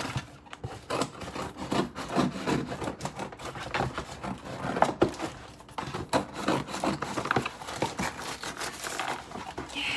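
Scissors cutting through a cardboard shipping box and its packing tape, with the flaps being pulled apart: irregular scraping, snipping and rustling of cardboard.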